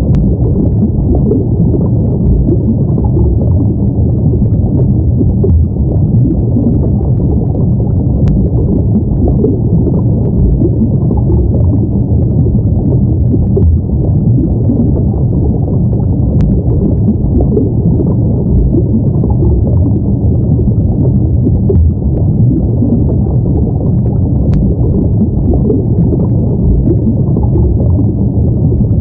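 Underwater ambience: a steady, muffled low rumble of water, with nothing in the upper range.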